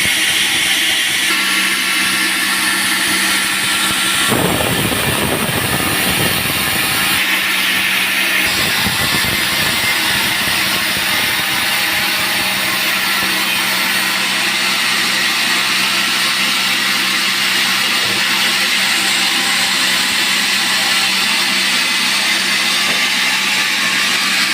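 Band sawmill running and cutting a dry teak log: a steady machine drone with a hissing saw noise, and a deeper rumble that comes in twice a few seconds in.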